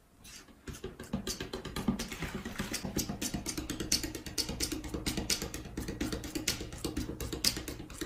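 Music with a fast, busy percussive beat over a steady tune, starting about half a second in.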